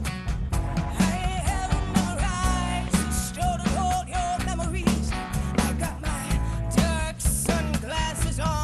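Live band music: a woman singing a wavering, sliding melody into a microphone over electric guitar, keyboard and drums, with a steady beat.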